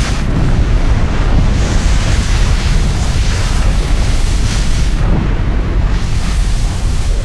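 Volcanic eruption sound effect: a loud, continuous deep rumble with a rushing hiss over it. It begins suddenly and stays steady throughout.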